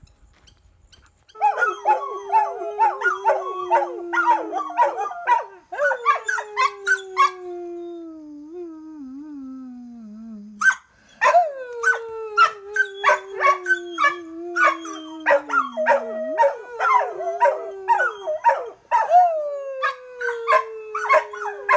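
Dogs howling and yipping together: three long howls that slide slowly down in pitch, starting about a second in, near the middle and near the end, with a rapid run of short yips over them.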